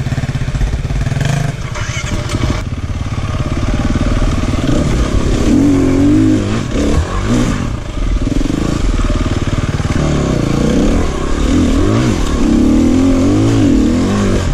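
KTM EXC-F 350 enduro bike's single-cylinder four-stroke engine under way on a dirt trail, its revs rising and falling again and again as the rider works the throttle.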